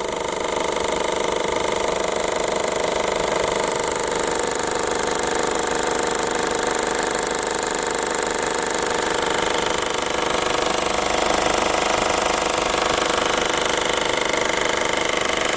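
Peugeot 308 1.6 HDi four-cylinder diesel engine running with a loud, steady metallic rattle. The owner traced the noise to a split in the upper heat shield where it bolts onto the engine.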